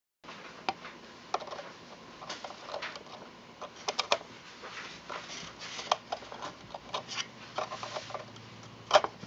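Irregular scratching, scraping and clicking inside a wooden cuckoo clock case as a tool works among the movement and wires, with a sharp knock near the end.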